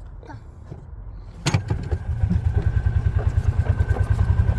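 Golf cart pulling away as the accelerator pedal is pressed: a sharp click about a second and a half in, then a loud, rapid, even pulsing drive sound with a faint steady whine over it.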